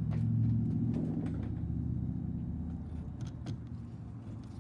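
A steady low mechanical hum that slowly fades, with a few light clicks late on and a sharper click at the very end.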